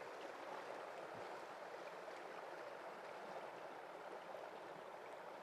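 Faint, steady rush of river current flowing over rocks.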